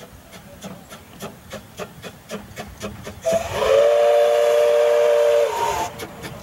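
Small narrow-gauge steam locomotive chuffing at about three exhaust beats a second as it runs. About three seconds in, its chime whistle sounds a chord of several tones, held for about two seconds and sliding down as it closes. The chuffing carries on after the whistle.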